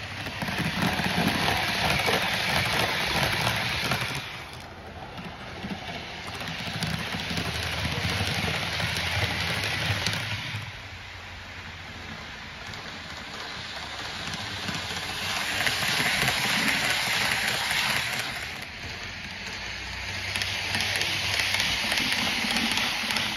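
Hornby OO gauge class 800 Azuma model train running on the layout's track, its wheels and motor making a steady rushing rumble over the rails. The sound rises and falls several times as the train passes close and draws away.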